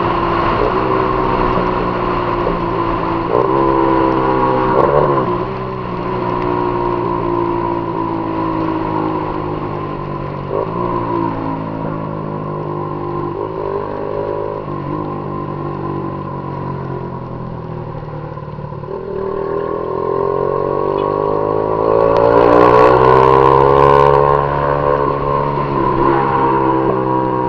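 Honda CG Titan 150 single-cylinder four-stroke engine running under way through a Viúva Negra aftermarket exhaust. The pitch drops and picks up again at a few gear changes, then climbs steadily as the bike accelerates about two-thirds of the way in.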